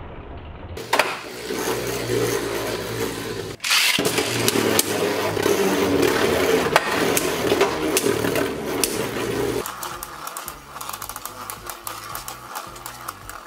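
Beyblade Burst spinning tops (Brave Satan on a Bearing 2S driver and World Fafnir on a Bearing 2B driver) whirring across a plastic stadium floor, with repeated small clicks as they touch and rattle. The sound gets louder about four seconds in, once both tops are spinning, and thins out after about ten seconds into quicker, lighter ticking.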